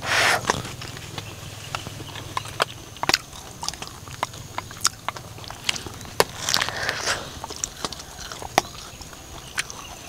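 Irregular small clicks and brief crunching rustles, a few each second, over a faint steady low hum.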